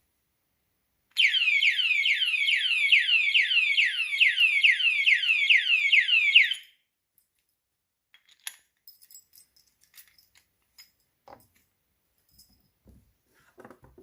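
Motorcycle alarm padlock's siren sounding: a rapid run of falling electronic sweeps, about three a second. It starts about a second in and cuts off suddenly some five and a half seconds later. Faint scattered clicks follow.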